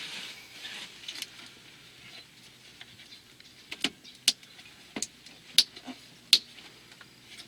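A soft rustling hiss, then a run of five sharp clicks or taps about half a second apart, the last two the loudest.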